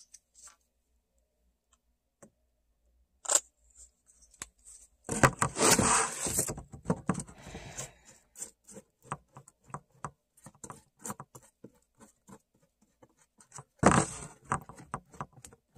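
Paintbrush dabbing and scrubbing paint over a crinkled, foil-like surface: a run of quick light taps and scrapes, with two louder scratchy bursts, about five seconds in and near the end.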